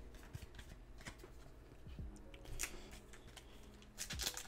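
Faint rustling and ticking of Pokémon trading cards being handled, with a brief cluster of sharper crinkles near the end as a foil booster pack is gripped to be torn open.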